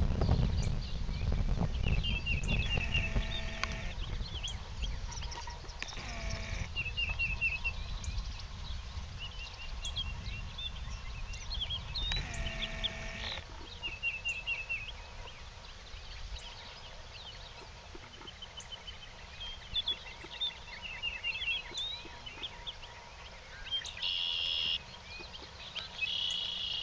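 Songbirds chirping in short repeated phrases, with a few longer animal calls about 3, 6 and 12 seconds in. Under them runs a low rumble that is strongest in the first half.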